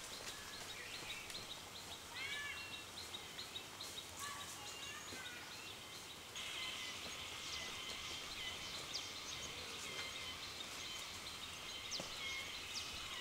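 Rural outdoor ambience: small birds chirping over a faint, fine ticking of insects. About halfway through, a steadier, louder insect buzz with repeated clicks starts abruptly.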